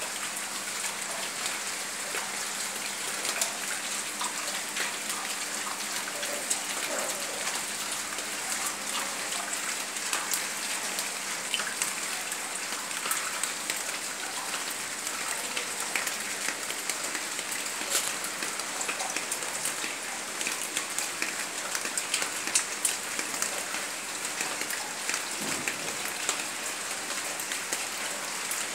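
Heavy rain falling steadily on potted plants, with many separate drops striking close by.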